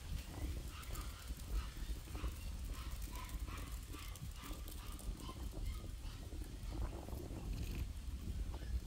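Rural outdoor ambience: a steady low rumble with a run of faint, short animal calls, several a second, in the first half.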